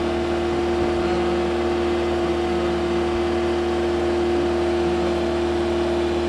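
Aerial lift's engine running steadily, a constant drone that holds one pitch throughout.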